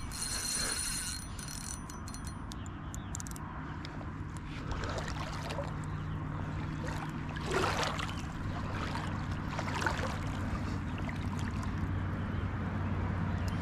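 Water lapping against a small fishing boat, with a low steady hum throughout. A spinning reel clicks and ratchets during the first couple of seconds while a hooked fish is held in the weeds.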